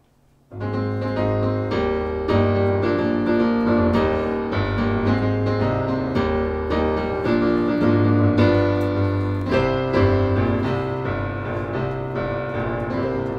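Instrumental intro music led by piano, with a steady low bass under a run of notes; it starts about half a second in.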